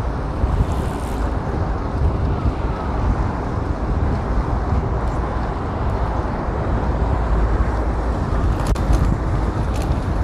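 Cycling noise on a bike-mounted GoPro action camera: a steady low rumble of wind on the microphone and tyres on pavement, with city street traffic behind it. A few light clicks sound near the end.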